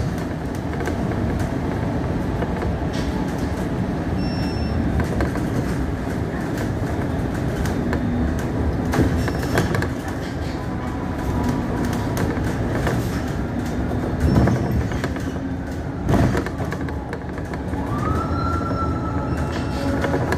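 Cabin noise of a city bus on the move: steady engine and road rumble with rattles and a few knocks, and a short rising whine about eighteen seconds in.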